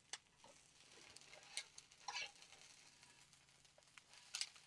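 A few soft clicks and scrapes of a spatula on a nonstick frying pan full of shredded cabbage, over a faint sizzle, all very quiet.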